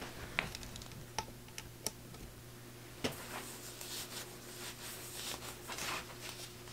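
Faint rustling of clothing fabric with a few sharp little clicks as a sweatshirt and leggings are tugged and adjusted on the body, over a steady low hum.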